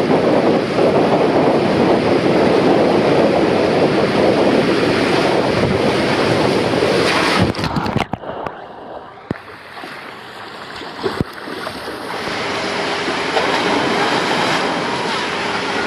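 Rider sliding fast down an enclosed Polin Aquatube body slide: a loud, steady rush of water and air inside the tube. About seven and a half seconds in, the rider shoots out into the water-filled runout lane with a splash, and the sound drops sharply and goes dull. Near the end, water runs on in the runout lane.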